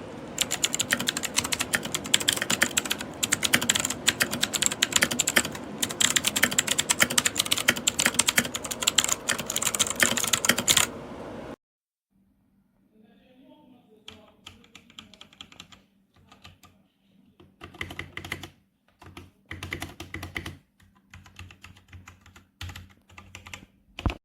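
Typing on a Dierya T68SE 60% mechanical keyboard with clicky blue switches. Fast, dense key clicks for about the first half stop abruptly. After a moment of silence come quieter, scattered bursts of key presses.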